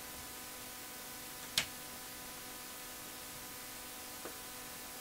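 A single sharp click about a second and a half in, over a faint steady hum and hiss; a much fainter tick near the end.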